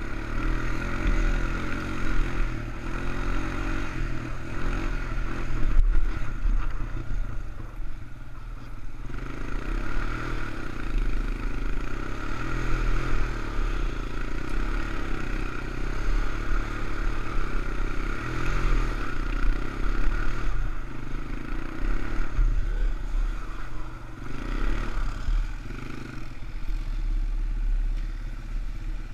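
ATV engine running under load, revving up and easing off again and again over the dirt trail, with the machine clattering and knocking over the bumps.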